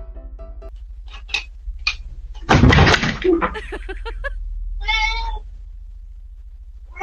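A domestic cat meows once, about five seconds in. A couple of seconds earlier comes a louder burst of scuffling with knocks, over a low steady hum.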